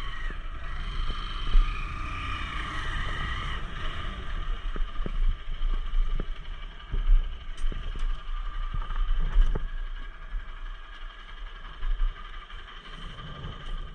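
Motorcycle riding: a steady engine drone with wind rumbling on the microphone and scattered knocks. It grows quieter in the last few seconds.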